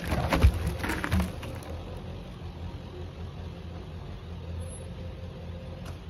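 Ponderosa pine logs sliding off a tipped dump trailer, with heavy thuds in the first second or so as they drop onto the ground, over a steady low motor hum.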